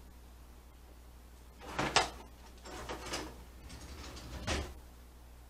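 Kitchen drawer being rummaged through, utensils clattering, with a sharp clack about two seconds in and softer rattles a second and two and a half seconds later.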